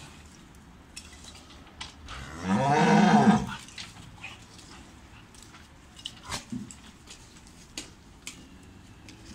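A cow mooing once, a single call of about a second that rises and then falls in pitch, followed by a few light clicks and knocks.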